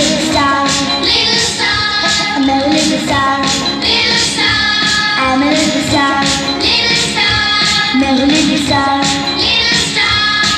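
Music for a dance: a song with sung vocals over a steady beat.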